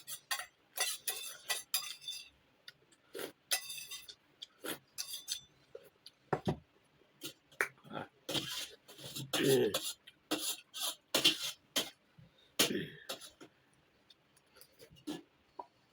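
Close-up eating sounds: chewing and lip smacks, with scattered clicks and clinks of a plate and utensils.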